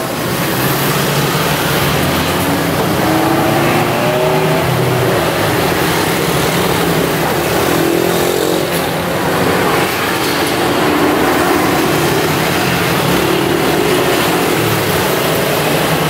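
A parked bus's engine runs steadily, with a steady rushing noise over it.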